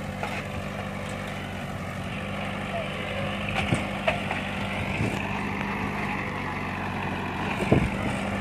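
VST Shakti Viraat Plus 27 hp compact tractor's diesel engine running steadily under load while pulling a seed drill through tilled soil. A few short knocks come through, the loudest near the end.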